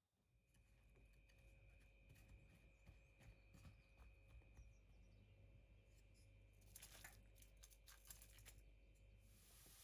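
Faint light clicks and scraping of a wooden spatula turning diced aubergine in a stainless steel pan, over a faint steady hum; a hiss of oil sizzling comes in near the end.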